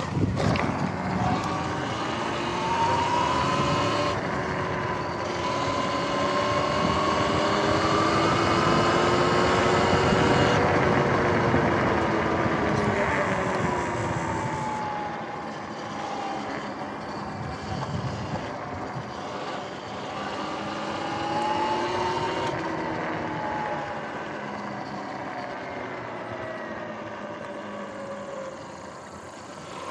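Sur-Ron X electric dirt bike being ridden: its motor and drive whine rises in pitch over the first ten seconds or so, falls away, then rises and falls again about twenty seconds in as the bike speeds up and slows. Under it runs a steady rush of wind and tyre noise.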